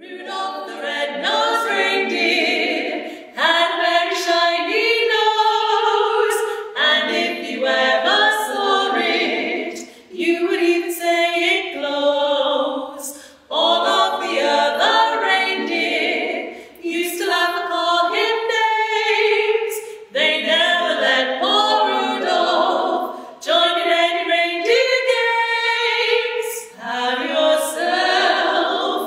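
Female a cappella trio singing in close three-part harmony, with no accompaniment, in phrases separated by short pauses for breath.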